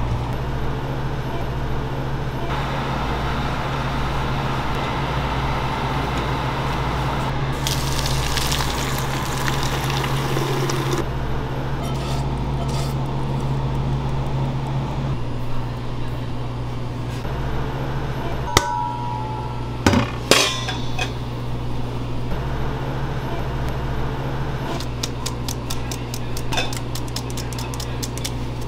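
Baking-kitchen work sounds: clinks and knocks of pans and utensils over a steady low hum, with a few seconds of hiss partway through and a fast run of light ticks near the end.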